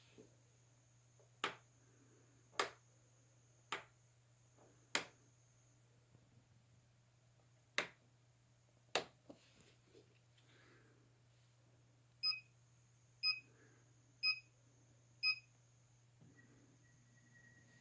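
Fitifito ST100 treadmill: six sharp clicks spread over the first nine seconds, then four short beeps one second apart, and a faint steady high whine that sets in near the end.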